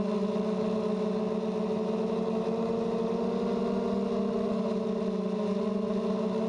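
Blade 200QX quadcopter's motors and propellers running with a steady hum at a constant pitch, heard close up through the GoPro mounted on the copter.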